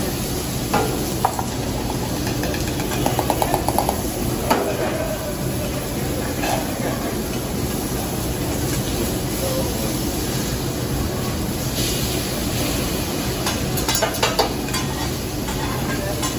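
Food sizzling steadily on a steel teppanyaki griddle: steak, chicken, onions and sliced mushrooms. Metal clinks against the steel now and then, with a quick run of taps about three seconds in and a cluster of clicks near the end.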